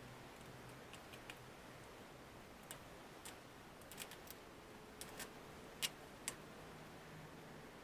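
Faint, irregular small clicks and taps of hand tools and plastic parts being handled during laptop disassembly, the sharpest about three-quarters of the way through.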